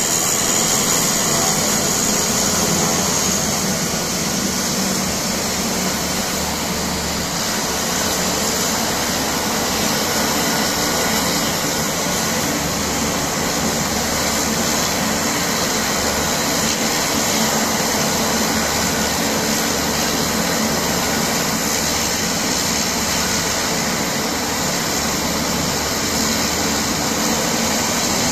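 Engines of a twin-turboprop commuter plane running at low power while it taxis and turns on the apron: a steady whine and hiss that stays even throughout.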